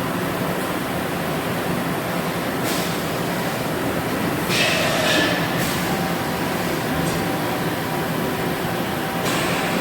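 Machine-shop machinery running with a steady drone and hum, with a few short bursts of high hiss, the longest and loudest about halfway through.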